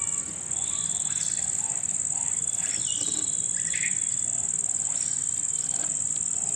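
Insects droning steadily on one high pitch, with a few short bird chirps about three and four seconds in.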